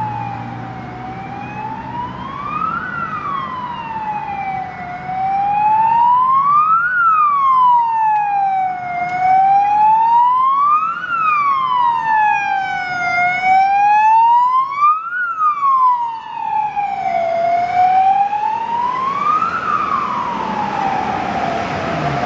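Ambulance siren on a wail, sweeping slowly up and down about once every four seconds, growing louder about six seconds in as the ambulance approaches.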